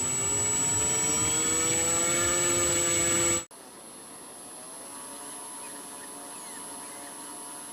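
Small electric motor spinning a propeller, a whine that rises slowly in pitch and then cuts off abruptly about three and a half seconds in, leaving a quieter steady hum.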